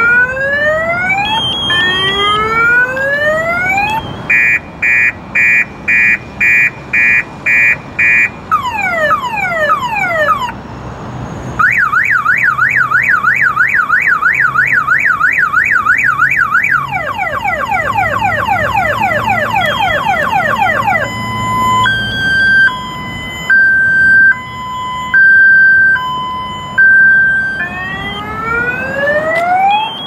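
SPY 5000m car alarm siren sounding and cycling through its tones: rising whoops, a run of short beeps about two a second, falling sweeps, a fast warble, quicker falling sweeps, then a slow two-tone high-low, before the rising whoops come round again.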